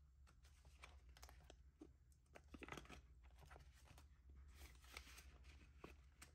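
Faint rustling, crinkling and light clicks of paper cash bills and envelopes being handled.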